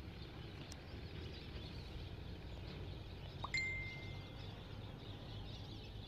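Faint, steady outdoor background noise. About three and a half seconds in, a single short, high, whistle-like tone sounds once.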